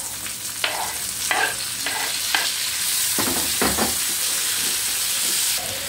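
Sliced calabresa sausage and onion sizzling in hot oil in a frying pan as chopped tomato, bell peppers and olives are scraped in off a wooden board and stirred with a spatula, with several short scrapes and knocks of the spatula. The sizzle grows louder about halfway through as the wet vegetables hit the oil.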